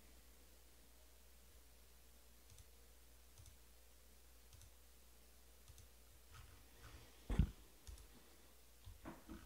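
A few faint, irregular clicks in a quiet small room, becoming more frequent after about six seconds, with one louder knock about seven and a half seconds in.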